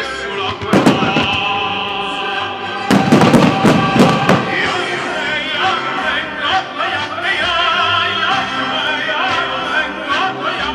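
Operatic singing over orchestral music, the soundtrack of a musical fireworks display. Firework shells burst over it about a second in and again in a loud cluster around three to four seconds in, followed by scattered crackles.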